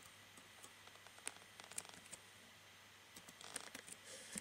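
A few faint computer keyboard keystrokes over near silence: two single clicks in the first two seconds, then a short run of keystrokes near the end.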